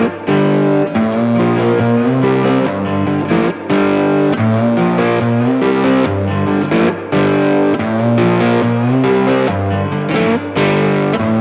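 Background music: a plucked, distorted electric guitar playing a steady run of notes.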